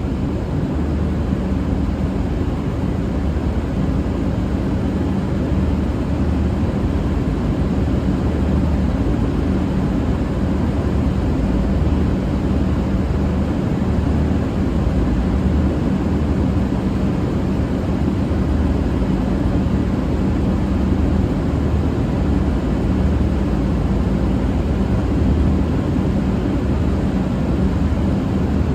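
Diesel engines of a V/Line VLocity diesel multiple unit idling at the platform: a steady low drone that holds the same pitch throughout.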